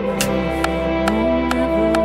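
Live worship band music: held chords over a steady bass note, a melody line moving underneath, and a light percussive tick about twice a second.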